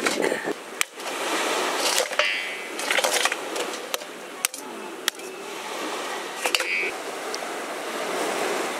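A large knife striking and cracking mud crab claws, giving a series of sharp, separate cracks and taps spread over several seconds.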